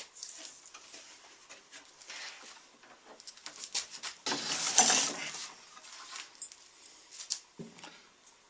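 Handling noise as small parts are picked up and moved: light clicks and rustling, with a louder rustle lasting about a second midway through and a soft knock near the end.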